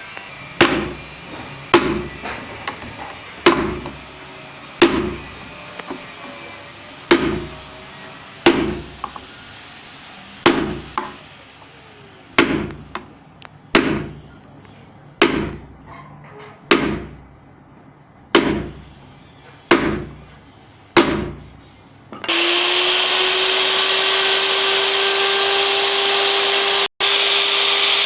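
About fifteen sharp wooden knocks, spaced a second or two apart, each ringing briefly. About 22 seconds in, a wood router's electric motor starts, its whine rising briefly, then runs steadily at full speed.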